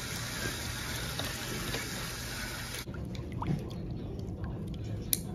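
Water running from a tap into a pedicure foot basin, cutting off abruptly about three seconds in. Afterwards it is quieter, with a few light clicks and one sharp click near the end.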